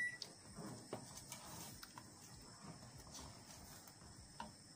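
Wooden spoon stirring thick kheer in a stainless steel pot: soft scraping with light, irregular knocks of the spoon against the pot, over a faint steady high hiss.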